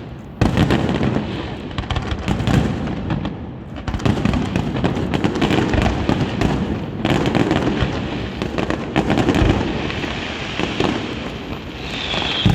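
Aerial fireworks display at full volume: a dense, continuous run of overlapping shell bursts, booms and crackle, one after another with no pause. A high whistle starts near the end.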